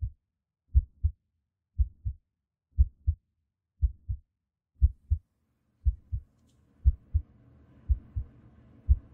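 Heartbeat sound effect: low, steady lub-dub double beats about once a second, roughly sixty a minute.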